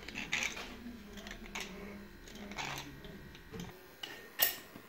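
Faint low hum of a 16K20 lathe running, with a few light metal ticks, that dies away about three and a half seconds in, followed by one sharp click as a control on the lathe is worked.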